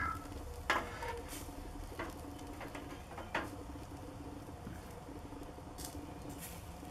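Caul-fat-wrapped skilpadjies grilling over coals, their fat dripping onto the embers and giving scattered pops and crackles, sharpest about a second in and again about two and three seconds later.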